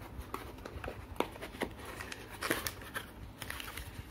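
Cardboard shipping box being opened by hand: the end flap pulled open and folded back, with cardboard and paper rustling and a few sharp clicks, the sharpest a little over a second in.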